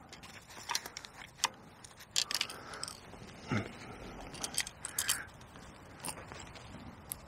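A folded fishing rod and its tip and butt protector sleeves being handled: scattered light clicks, taps and rustles.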